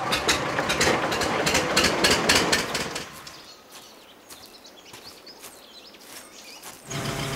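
Stationary engine running in a wooden shed, a fast run of sharp exhaust beats, which cuts off about three seconds in. A quiet stretch follows, then a steady low engine hum comes in near the end.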